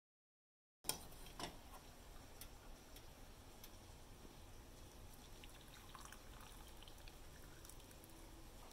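Faint pouring of milky tea from a steel saucepan through a metal mesh strainer into a mug, with a couple of light clicks just after the sound begins, about a second in.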